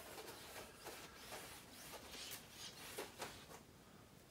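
Faint rubbing of a cloth wiping a glass front panel, in a few soft, irregular strokes.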